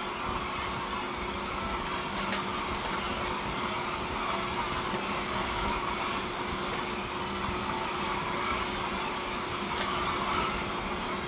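Steady machinery running with a constant low hum and a few faint clicks.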